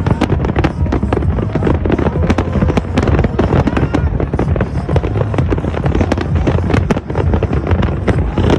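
New Year's Eve fireworks display: a loud, continuous barrage of bangs and crackling from many shells bursting in quick succession.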